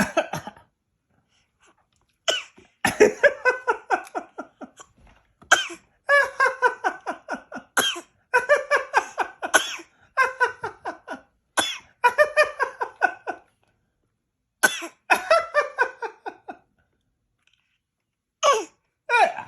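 An eight-month-old baby making repeated short fake coughs, play rather than illness, mixed with laughter. They come in runs of quick pulses with short pauses between, and there is a longer lull near the end.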